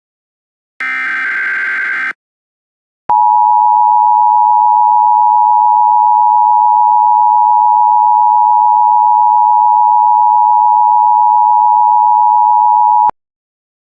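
An Emergency Alert System SAME header data burst, a short digital screech, ends about two seconds in. About a second later the EAS two-tone attention signal (853 and 960 Hz together) starts, sounds steadily for about ten seconds, and cuts off suddenly. Together they announce a new alert message.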